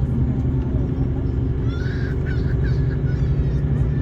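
Volvo D13 inline-six diesel engine of a Volvo 9800 coach running at a steady speed. Near the middle, a quick run of five or six short, high calls sounds over it.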